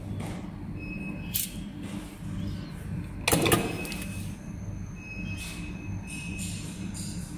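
Catheter tip forming machine running with a steady low hum. A metal clamp clicks about a second in, and a louder sharp clunk with a short rush of noise comes about three seconds in, with a few faint short high tones.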